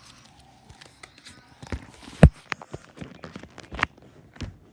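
A series of irregular knocks and thumps, about half a dozen, the loudest a little over two seconds in.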